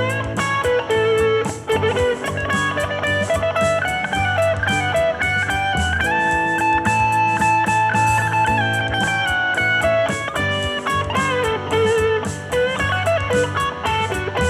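Electric guitar solo on a Fender Stratocaster, single-note blues-rock lines in A Mixolydian with string bends and a long held note about halfway through. Underneath runs a backing track with bass and drums.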